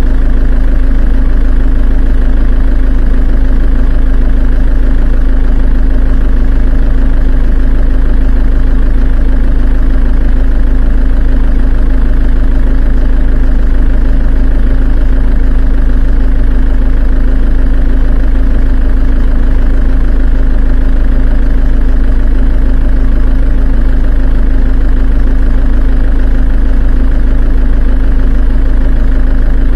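A heavy engine idling steadily and loudly: a deep, constant rumble with a slight regular pulse.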